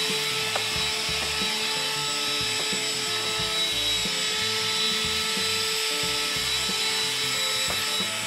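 Handheld vacuum cleaner running steadily with a high motor whine as it is worked over a cabinet shelf, with background music underneath.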